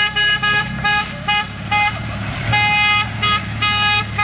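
Car horn honking over and over: a quick string of short beeps, then a longer blast about two and a half seconds in and more beeps after it, over the steady hum of an engine running.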